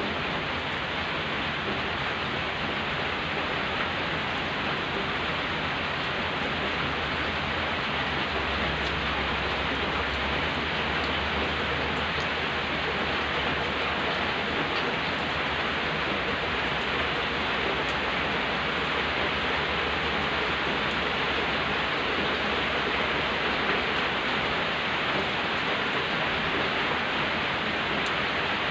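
Steady rain falling on a dirt road and the surrounding foliage, an even hiss that holds constant throughout.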